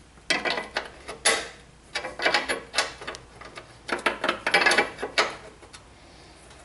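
Ratcheting wrench clicking in several quick bursts of strokes as a brake line fitting is tightened, the clicks stopping about five seconds in.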